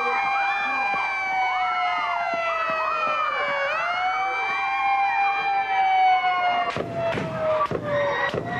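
A siren wailing, slowly rising and falling, with short cries and screams of people over it; from about seven seconds in, a rapid series of sharp bangs breaks in.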